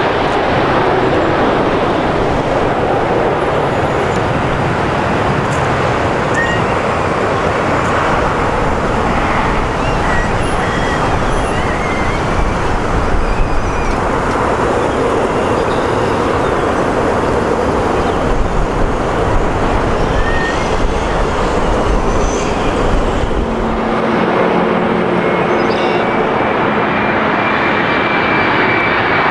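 Boeing 777's twin jet engines, a loud steady rumble through touchdown and rollout on the runway, heaviest in the bass in the later part. About 24 s in, it gives way to an Airbus A321-200 on final approach: a lighter engine noise with a thin whine slowly rising in pitch.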